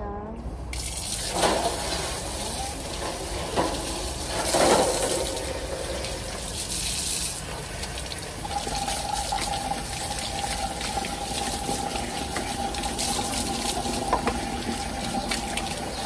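Water running from a tap and splashing as a small plastic feeder cup is rinsed under the stream, with a couple of louder splashes in the first few seconds. About halfway through a steady high tone comes in over the running water.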